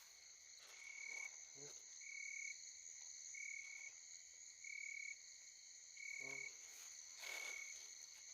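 Faint night chorus of frogs and insects: a steady high insect trill under a frog's call, a short tone that repeats about once a second, with two brief low croaks.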